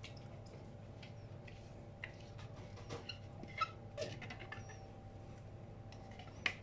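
Silicone spatula scraping a thick zucchini and egg mixture out of a food processor's plastic bowl into a glass bowl: scattered soft scrapes, small squeaks and light clinks, with a sharper clink near the end, over a faint steady hum.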